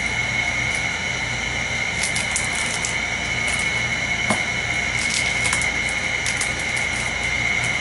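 Foil trading-card booster pack crinkling in the hands and being torn open: a scatter of short sharp crackles from about two seconds in, over a steady background hum with a high whine.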